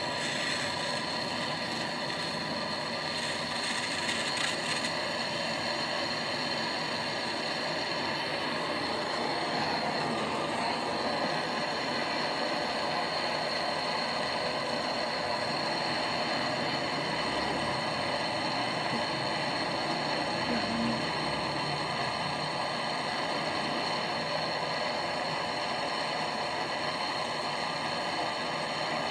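Brazing torch flame hissing steadily while a leak on a copper evaporator coil is brazed.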